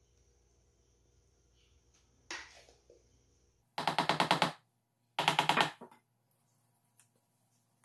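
Two short bursts of rapid knocking: a glass tube pan full of cake batter rattled against the table to settle and level the batter, after a softer scrape a little earlier.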